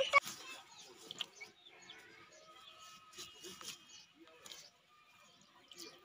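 Scattered clicks and scrapes of a boti blade cutting young green jackfruit, the loudest a sharp click just after the start. Chickens cluck and birds chirp faintly in the background.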